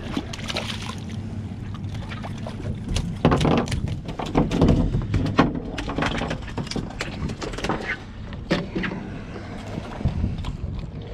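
Water splashing as a porgy is pulled from the water, then a run of quick knocks and rattles as the fish flaps on the boat deck and is handled while being unhooked.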